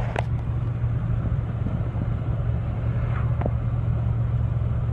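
Steady low rumble of a vehicle driving along, heard from inside the cab: engine and road noise.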